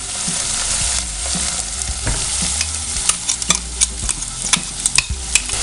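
Onion, green chillies, curry leaves and ginger-garlic paste sizzling in hot coconut oil in a pan as they are stirred, with a steady hiss. From about three seconds in, the stirring utensil knocks against the pan in a run of sharp clicks.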